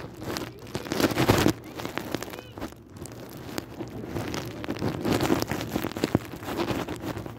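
Rustling and rubbing noise from the phone being handled with its microphone covered, with scattered clicks and knocks.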